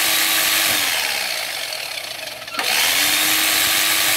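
Bare universal motor of a Philco All in One food processor, wired direct to bypass its safety interlock, running at top speed with a loud, high-pitched whirring. It cuts out under a second in and winds down, then starts again with a click about two and a half seconds in and runs at full speed once more.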